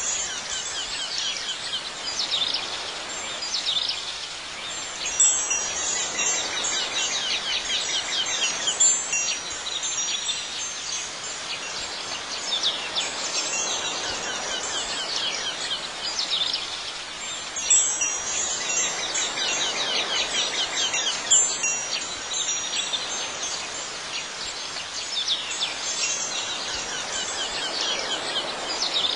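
Wind chimes tinkling over a steady bed of high chirping, in an ambient garden soundscape whose pattern comes round again about every twelve seconds.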